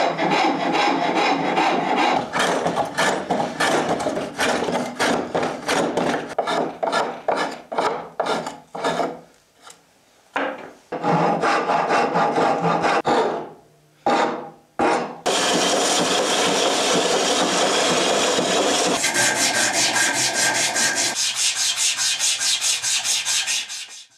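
A hand file scraping across a wooden cleaver handle in repeated push strokes, about two a second, with short pauses about ten and fourteen seconds in. From about halfway the strokes turn faster and brighter until they stop at the end.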